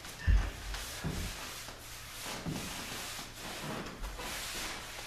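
Hand-held applicator rubbing water-based finish across a sanded hardwood floor in repeated, irregular swishing strokes. A low thump comes about a third of a second in.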